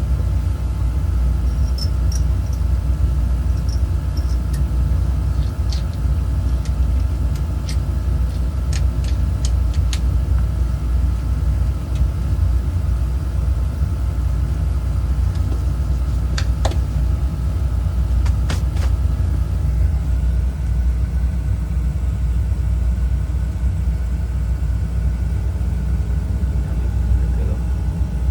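Oil-fired boiler burner running steadily with a low, even rumble, sounding smooth now that the coupling between its motor and fuel pump grips again. Faint ticks and clicks come over it now and then, clustered in the first third and again a little past the middle.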